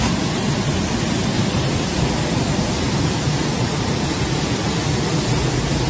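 Muddy flash-flood torrent rushing down a street and carrying cars along: a steady, dense roar of water.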